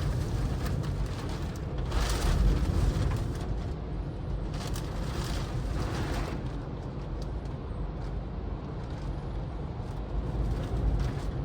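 Storm wind from a nearby tornado buffeting the microphone and car: a steady low rumble with surges of rushing noise about two and five seconds in.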